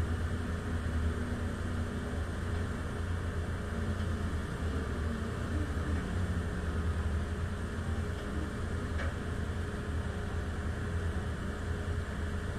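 Large mobile crane's diesel engine running steadily with a low hum while it holds and swings a heavy load.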